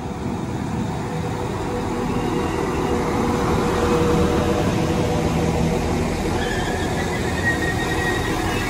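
Northern Class 195 diesel multiple unit arriving at the platform, its engine and running noise building steadily louder. A high-pitched squeal joins about six seconds in and holds to the end.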